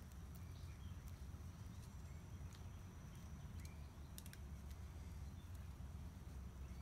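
Faint handling sounds of a webbing hammock strap being wrapped and fastened around a tree trunk: a few light clicks and rustles over a low steady rumble.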